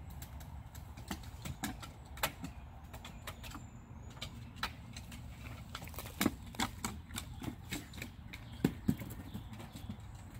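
Dogs' paws and claws clicking and knocking on wooden deck boards, irregular taps with a few louder knocks as a dog steps down onto the deck.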